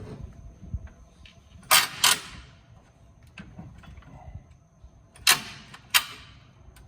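Four short, loud, sharp bursts of tool noise in two pairs, each pair about half a second apart, from work on the bolts of a Turbo 400 transmission being removed from a truck.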